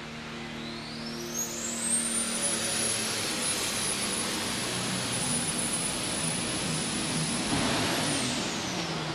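8200 lb diesel super stock pulling tractor under full power, its turbocharger whine climbing to a high, steady scream over the first three seconds and holding. About eight seconds in, the whine falls away as power comes off; the announcers put this down to something in the drivetrain letting go.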